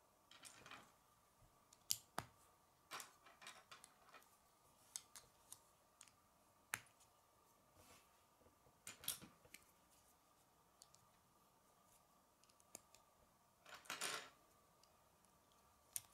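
Plastic K'nex connectors and rods clicking and snapping together as they are handled and joined, in faint scattered clicks with busier runs of clicking about halfway through and again near the end.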